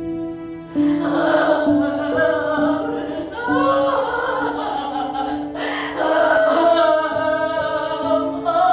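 A woman wailing and moaning in anguish, starting about a second in, over sad background music of sustained notes.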